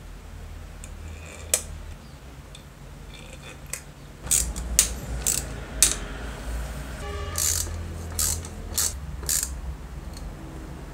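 Screwdriver working the screws out of a 1950s Wen All Saw jigsaw's aluminium gear housing: a run of sharp metal clicks and taps, thickest in the middle, over a low steady hum.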